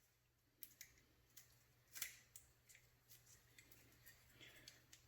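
Near silence with faint scattered clicks and ticks of small parts being handled, the loudest about two seconds in.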